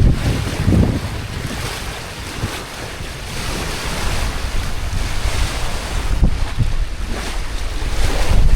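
Wind buffeting the microphone over the wash of the sea, on a small sailing yacht under way. It swells in gusts near the start and again near the end.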